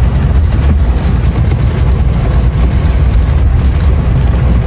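Motorhome's engine running, a steady low rumble heard from inside the cab.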